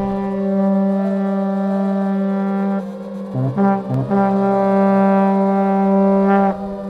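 Background music: a long, steady low note held for a few seconds, broken by a few short notes in the middle, then held again and stopping near the end.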